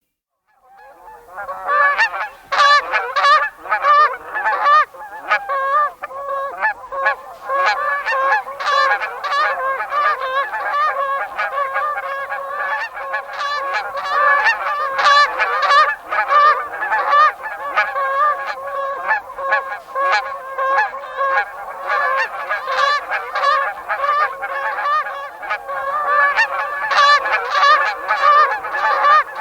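A flock of Canada geese honking continuously, many birds calling over one another in a dense chorus of short, sharp honks that fades in over the first second or so.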